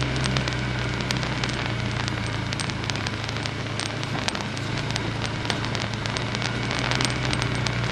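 An off-road vehicle's engine running steadily at low revs, overlaid with a dense, irregular crackle of sharp clicks.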